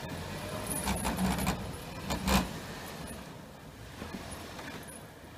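Toyota FJ Cruiser's V6 engine running under load as the SUV crawls through deep snow, its tyres churning and crunching the snow, with louder surges about a second in and again a little after two seconds.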